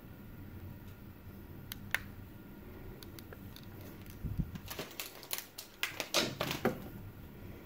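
Light clicks and taps of a small plastic sun visor mirror door being handled and turned in the fingers: one sharp click about two seconds in, then a run of quick clicks and rustles from about four seconds on.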